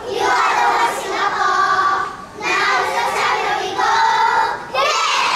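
A group of young children singing together in unison: two long phrases with held notes, then a last note sliding upward near the end.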